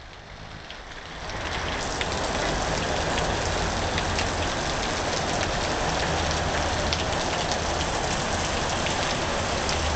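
Heavy rain coming down in sheets: a dense steady hiss of falling rain with many small drop spatters, growing louder about a second and a half in and then holding steady.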